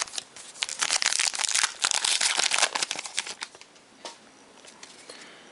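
Foil wrapper of a pack of 2012 Heritage baseball cards being torn open and crinkled, a dense crackling rustle for about three seconds that then fades to faint handling.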